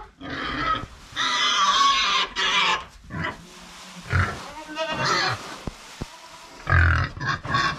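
Pigs calling out repeatedly. The longest and loudest call comes about a second in and lasts about two seconds, followed by several shorter calls.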